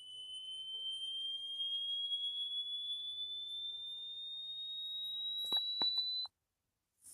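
A single high-pitched electronic sine tone, held and slowly rising in pitch, from an analog-horror video's soundtrack. A few faint clicks come near the end, and then the tone cuts off suddenly.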